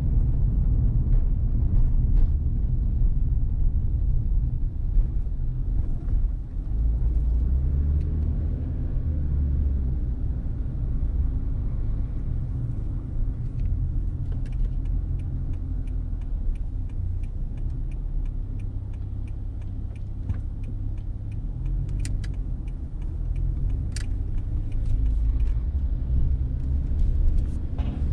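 Car driving along a road: a low, steady rumble of road and engine noise, with a few faint clicks and ticks in the second half.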